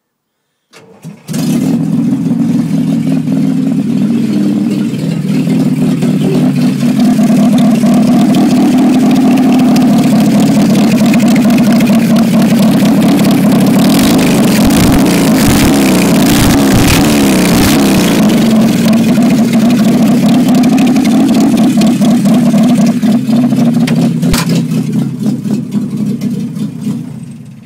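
Land Rover 2.25-litre petrol four-cylinder engine running with no exhaust system, gases exiting straight from the exhaust manifold. It starts up about a second in, then runs loud and steady, oddly like a Harley Davidson at idle, and dies away near the end.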